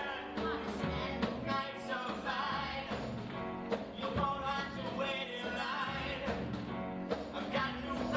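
Live singing over a rock-style band, with a steady beat running under the voices.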